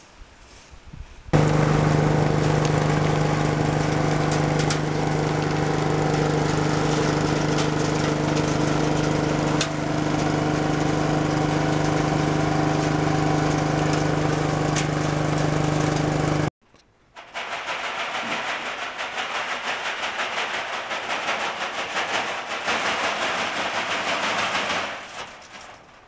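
Small petrol engine of a cart-mounted vacuum nut harvester running steadily, with air rushing through its suction hose; it cuts in suddenly about a second in and cuts off abruptly past the middle. After that comes a fluctuating rustling rattle of hazelnuts being worked by hand over a wire-mesh sorting screen, fading near the end.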